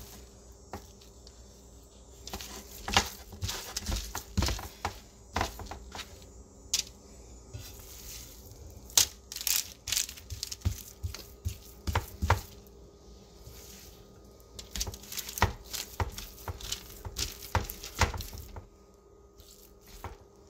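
Hands pressing and spreading crumbly semolina dough over a parchment-lined baking tray: irregular crinkling of the parchment and soft pats and scrapes, which stop near the end. A faint steady hum lies underneath.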